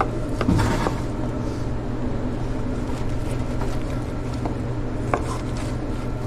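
Steady low machine hum in a kitchen, with a few light clicks and knocks from a knife and raw meat being handled on a plastic cutting board, one sharper click about five seconds in.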